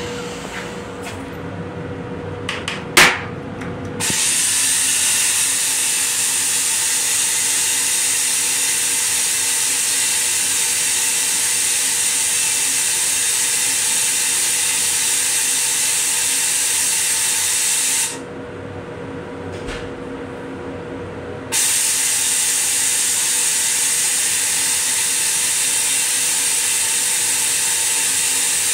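Railcar toilet flushing: after a sharp click about three seconds in, a loud, steady rushing hiss starts abruptly. It cuts off suddenly about fourteen seconds later and starts again after a pause of about three and a half seconds.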